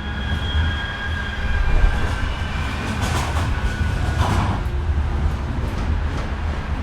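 British tram running on its rails: a steady low rumble, with a high whine that fades out over the first two seconds and a brief burst of rattling wheel-and-rail noise about three to four seconds in.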